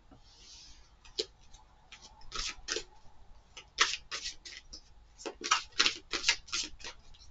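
Tarot cards being shuffled by hand: a run of irregular crisp card slaps and flicks, sparse at first and coming in quicker clusters in the second half, after a short soft swish near the start.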